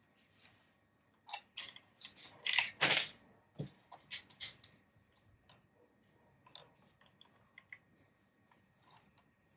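Handling noise: scattered light clicks and short rustles, loudest in a brief cluster about two and a half to three seconds in.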